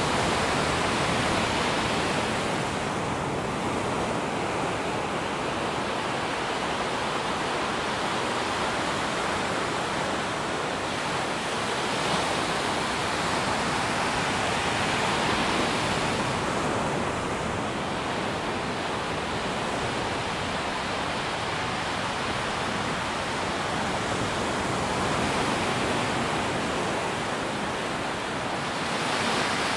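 Ocean surf breaking and washing up a sandy beach: a steady rush that swells and eases every ten seconds or so as each wave breaks.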